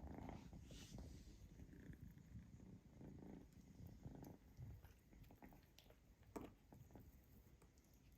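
A cat purring faintly, a low, rapidly pulsing rumble, with one small click about six seconds in.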